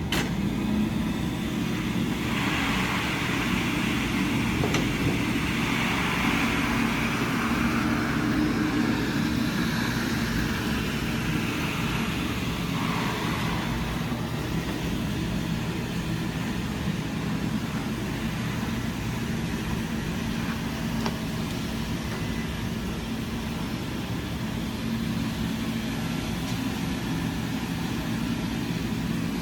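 XD20QL walk-behind wet floor scrubber running: a steady motor hum with a hiss from its scrubbing and suction on the wet floor, the hiss stronger for about the first dozen seconds.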